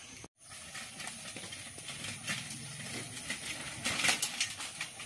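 Bicycle clattering and ticking as it is ridden over a rough dirt lane, loudest about four seconds in.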